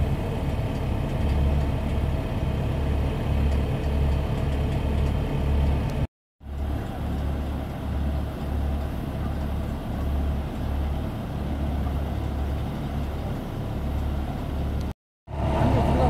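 Small tracked drilling rig running: steady engine noise with a low, uneven throb about twice a second. The sound drops out briefly twice.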